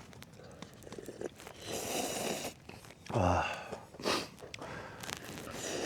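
Instant noodles being slurped and eaten: several breathy slurps and sniffs, with a short low hum about three seconds in.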